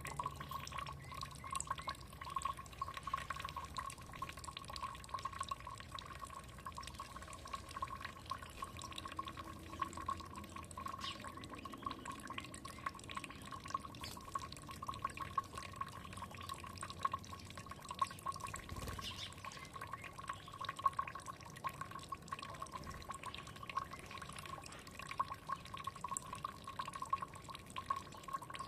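Water trickling and dripping steadily, a fast patter of small drips over a continuous gurgle.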